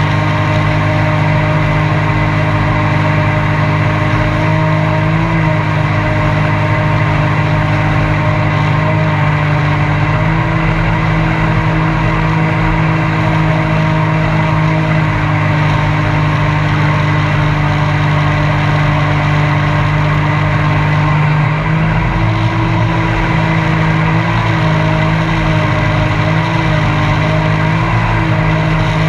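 Mini jet boat's engine running steadily under way on the river, its pitch shifting slightly up and down a few times.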